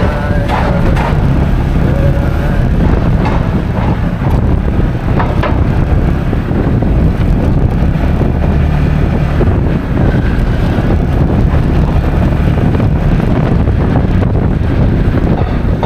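Motor scooter being ridden: steady engine and road rumble with wind rushing over the microphone.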